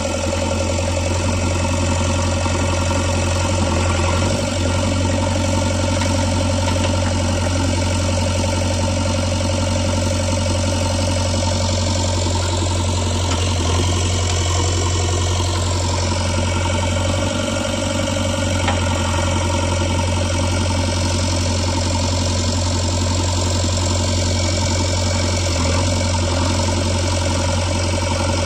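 JCB 3DX Eco backhoe loader's diesel engine running steadily with a deep, even hum.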